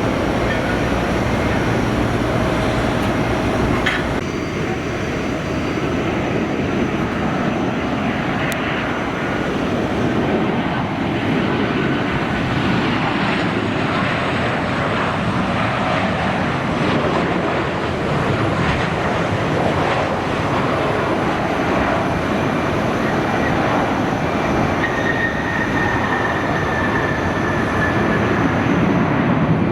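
Jet airliner engine noise: a loud, steady rush that holds for the whole stretch, with faint whining tones over it.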